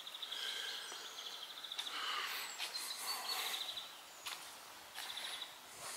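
Small birds singing outdoors: high chirps and short, rapid trills repeating every couple of seconds over a soft background hiss, with a few soft footsteps.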